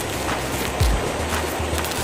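Background music with a steady bass beat and a deep thump about a second in.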